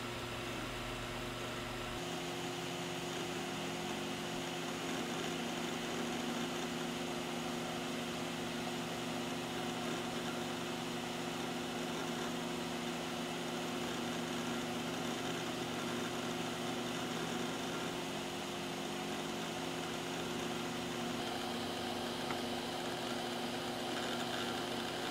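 Western Digital Raptor X WD1500AHFD 10,000 RPM hard drive running, its spindle giving a steady hum-whine over a constant hiss.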